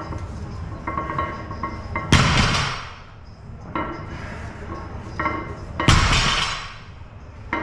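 A barbell loaded with 160 kg of Eleiko plates set down on a rubber gym floor twice, about four seconds apart, after deadlift reps: each time a heavy thud with a clattering ring that fades within a second. Background music plays underneath.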